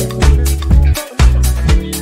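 Dance music track with a steady beat of about four hits a second over a bass line; the bass drops out briefly about a second in.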